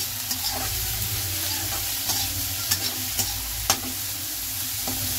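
Sliced onions and chopped tomatoes sizzling in hot oil in a pan as a spatula stirs them: a steady hiss, with sharp taps and scrapes of the spatula against the pan about once a second. This is the onion-tomato base being fried for egg bhurji.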